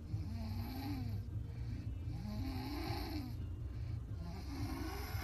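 A woman snoring heavily while asleep in a car, three snores about two seconds apart, each a breathy drone that rises and falls in pitch. A steady low rumble runs underneath.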